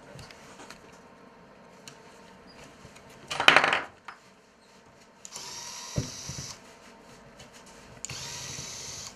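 Small electric screwdriver whirring in two short runs of about a second each, driving the screws of a multiplier fishing reel. A brief loud clatter comes about three and a half seconds in.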